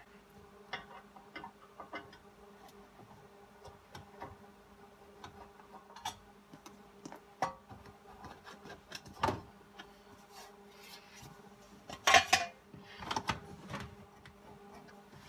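A screwdriver working the small hinge screws of a car's centre-console door: scattered light clicks and taps of metal on metal and plastic. Near the end comes a louder clatter of handling as the door is lifted off the console.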